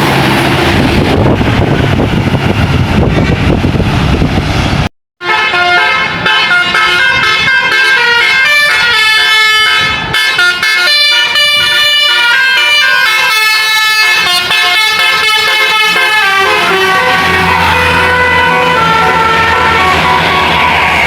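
Indonesian bus 'telolet' horns: multi-tone air horns playing quick melodic toot sequences, stepping between pitches like a tune, over the running bus engine. The sound cuts out completely for a moment about five seconds in.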